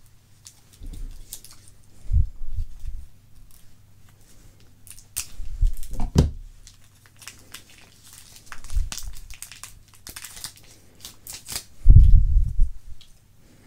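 Hands handling a red Swiss Army knife and small parts on a desktop: scattered crinkling and clicking, with a few dull knocks on the table, the loudest near the end.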